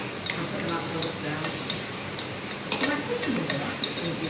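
Food sizzling in a pan, with a utensil stirring and clicking against it several times.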